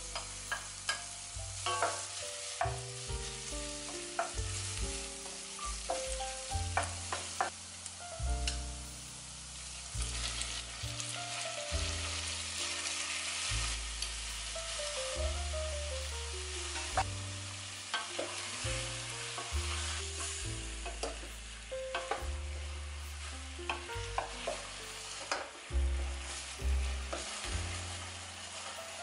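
Ginger strips and then chicken pieces sizzling and frying in hot oil in a pot. A wooden spoon stirs them, making short clicks and scrapes. Background music with a bass line and melody plays under it.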